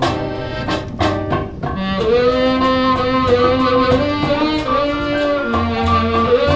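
Background music: an instrumental break in a Malay song, a held melody line over a steady beat.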